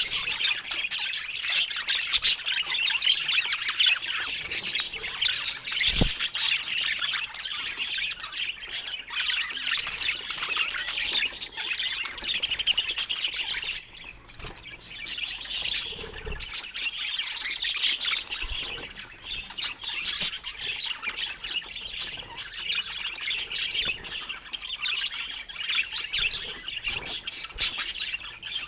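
Budgerigars chirping and chattering busily without pause, with a short lull about fourteen seconds in.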